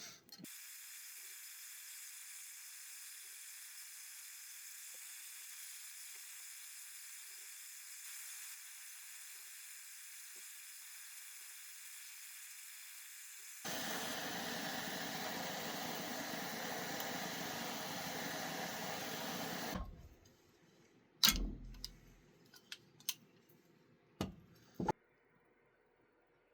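A torch flame hissing steadily while heating square wire for twisting; about halfway through, the hiss becomes suddenly louder and fuller for some six seconds, then cuts off. A few sharp clicks and knocks of metal tools follow.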